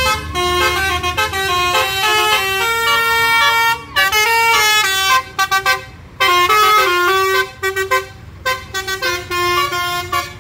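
Tour bus's multi-tone "telolet" air horn playing a stepping melody in short phrases with brief breaks, over the bus's engine running as it pulls away.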